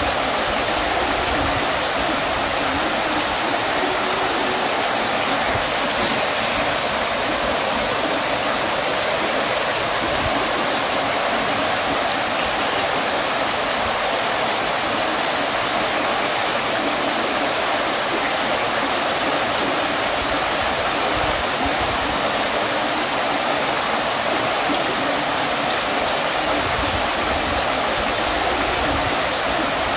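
Water from an ornamental fountain splashing and falling into its basin, a steady, even rush without a break.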